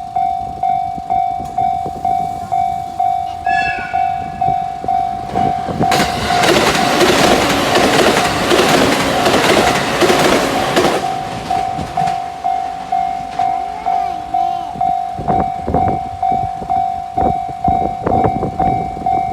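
Railway level crossing warning bell ringing steadily, one even ding repeated about every two-thirds of a second. A short horn sounds about three and a half seconds in, and a train passes from about six to eleven seconds in, its rushing rail noise covering the bell before the bell rings on alone.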